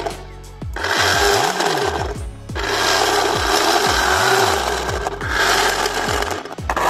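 A 3D-printed dual impeller pump driven by a 775 DC motor whirs as it churns water in its clear housing. It is switched on and off, running in about four bursts of one to three seconds. Background music with low sliding notes plays underneath.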